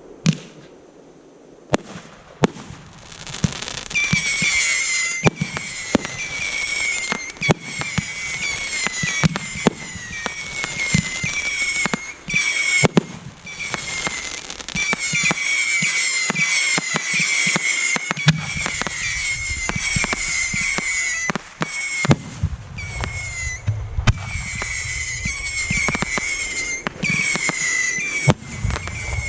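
Fireworks display firing: a quick string of sharp bangs, then from about four seconds in a continuous dense high crackling and hissing over the bangs. A deeper rumble joins in past the middle.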